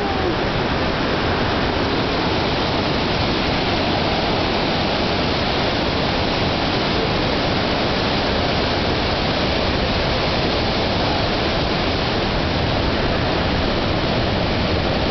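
Rushing water of a fast, white-water forest creek, a steady, even rush with no break.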